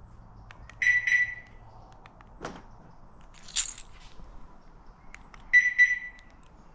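Land Rover Discovery Sport's alarm giving two short high-pitched beeps about five seconds apart, with a sharp click between them: the car's mislock warning when it is locked, caused by a faulty door lock actuator.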